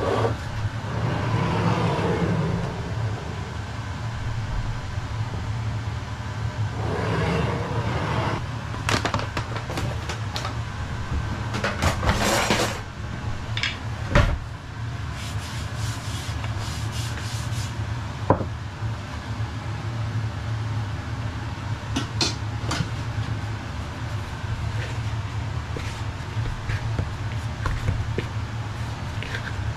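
Kitchen worktop handling sounds: scattered knocks and clatters of a mixing bowl and utensils, with hands rubbing and brushing as flour is spread over the worktop. A steady low hum sits underneath throughout.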